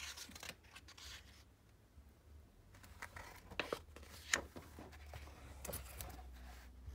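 Faint rustling and scraping of picture-book pages being handled, with a few short clicks.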